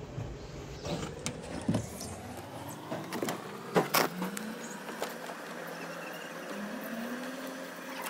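Handling noise of hands working wires and plastic parts under a washing machine: a few short clicks and knocks, the loudest about two and four seconds in, over a steady background hum that drops away about three seconds in.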